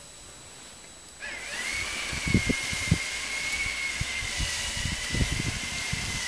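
A small electric motor starts about a second in and runs with a steady high whine and hiss, with a few low thumps along the way.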